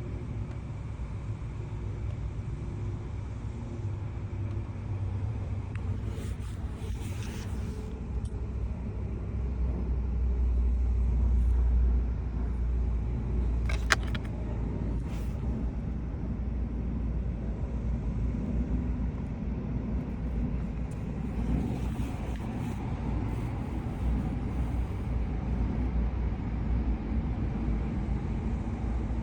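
Steady low rumble of a car, swelling for a few seconds about a third of the way in, with one sharp click about halfway.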